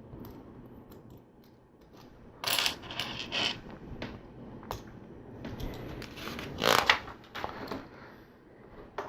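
Plastic LEGO pieces clicking and clattering as Technic axles and bushings are handled and pushed together, in two bursts of sharp clicks, one about two and a half seconds in and one around six to seven seconds in.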